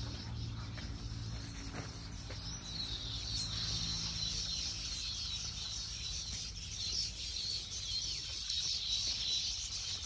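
A chorus of many small birds chattering and chirping all at once, high-pitched and continuous, over a steady low hum.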